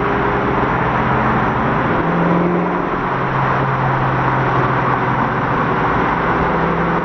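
Car engine running with road noise, heard from inside the cabin. It holds a steady note that shifts pitch about two seconds in.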